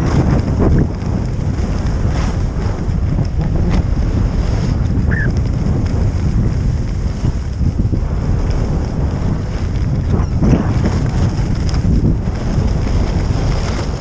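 Heavy wind buffeting an action camera's microphone while skiing fast downhill, with the scrape of ski edges on snow now and then.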